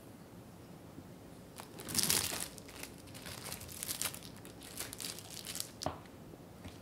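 A plastic sheet crinkling and rustling as it is peeled off a strip of rolled, chilled tart dough, loudest about two seconds in. A single light tap comes near the end.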